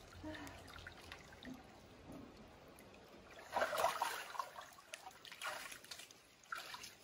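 Hot-spring bath water splashing and trickling as a person stands up and climbs out, with the loudest splash about three and a half seconds in and water running and dripping off after it.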